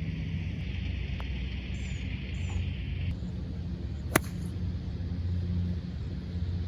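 A golf club striking a ball once, a sharp crack with a short ring about four seconds in, over a steady low rumble and a high hiss that cuts off abruptly about three seconds in.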